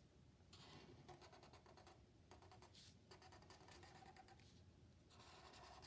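Faint scratching of a black marker pen drawn across paper in long strokes, in three stretches with short pauses between them.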